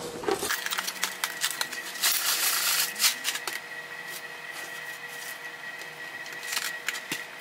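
Light clicking and rattling from kitchen handling, with a short hiss about two seconds in.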